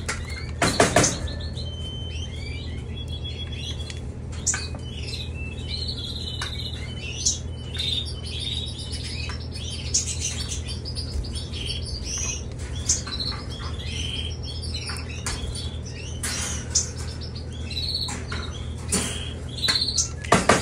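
Domestic canaries chirping with many short high calls throughout, over a steady low hum. A couple of louder sharp sounds about a second in and near the end.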